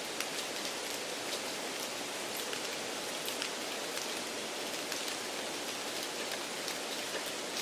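Steady rain-like hiss with faint scattered crackles: a background noise track laid under a listening-test recording to mimic poor exam-room conditions.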